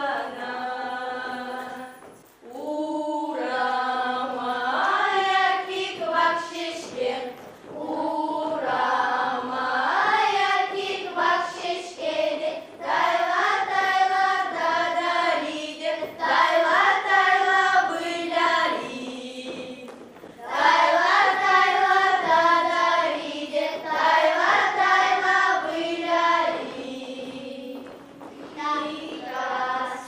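A group of girls singing a folk round-dance song together, in sung lines with brief breaks between them.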